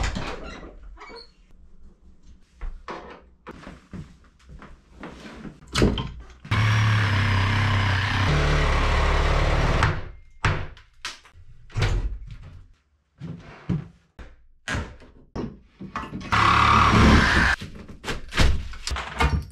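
Knocks and hammer blows on wooden door framing: many separate thuds at irregular spacing. A power tool runs steadily for about three and a half seconds near the middle and again for about a second near the end.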